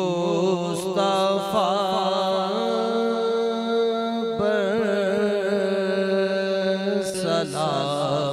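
A male voice singing an Urdu naat, drawing out the word 'Mustafa' in long, wavering, ornamented notes over a steady held drone.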